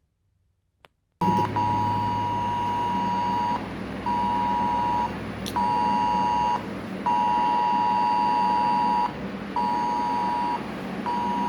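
Mobile phone's cell-broadcast emergency alert tone: two steady high tones sounding together in a repeating long-short-short pattern over a low hum. It starts about a second in, after a brief silence.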